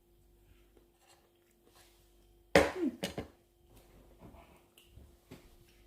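A sudden loud knock about two and a half seconds in, followed by a few lighter clicks and knocks, over a steady low hum.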